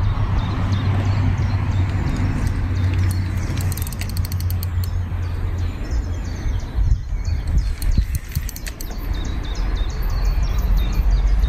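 Fishing reel clicking in fast runs of small ratchet clicks, starting about three seconds in, over a steady low rumble.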